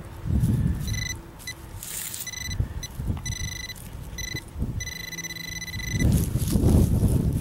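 Handheld metal-detecting pinpointer beeping as it is probed in a dug hole: a high electronic tone in short irregular beeps, then a longer steady tone about five seconds in, the sign that metal is near its tip. Wind rumbles on the microphone, strongest near the end.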